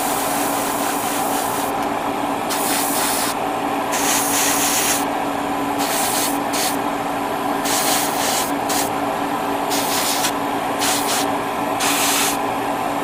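Airbrush spraying paint onto small model-kit parts in short hissing bursts, about seven of them, over a steady machine hum.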